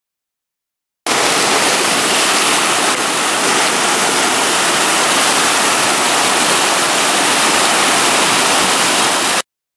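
Rushing whitewater rapids: a steady, loud hiss of churning river water that starts abruptly about a second in and cuts off suddenly near the end.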